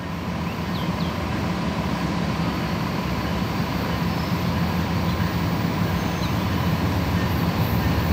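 Amtrak P42DC diesel locomotive approaching from down the line: a steady low engine drone that slowly grows louder.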